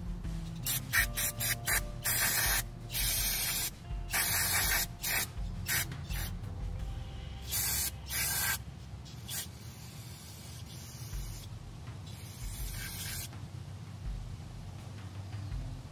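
Aerosol carburetor cleaner hissing from its straw nozzle in repeated bursts, some short and some about a second long, onto a small-engine carburetor's float bowl. The bursts come thickly in the first half and a few more follow later.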